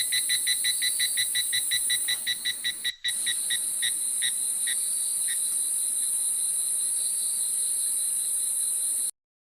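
Chorus of jungle insects, a steady high-pitched buzz, with a repeated chirping call about five times a second that slows and fades out about halfway through. The sound drops out for an instant about three seconds in and cuts off abruptly near the end.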